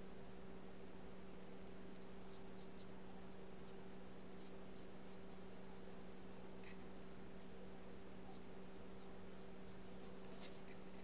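Faint, irregular dabs and strokes of a paintbrush laying gouache on paper, over a steady low hum.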